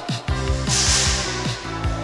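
Background music with a steady, heavy bass-drum beat.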